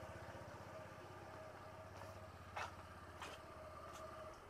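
Faint vehicle engine running with an even low pulse, and a few light clicks.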